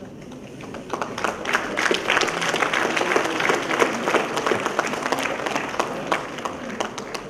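Audience applauding: many hands clapping together, building about a second in and tapering off near the end.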